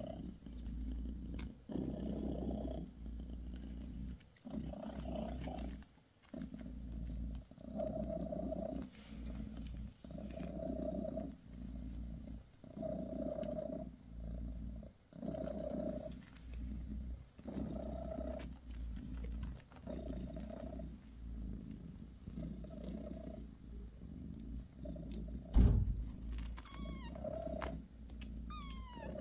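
British Shorthair mother cat purring while her newborn kittens nurse, a low, rough purr that swells and fades with each breath. About 26 seconds in there is a single knock, and near the end a few short, high squeaks that fall in pitch, from a newborn kitten.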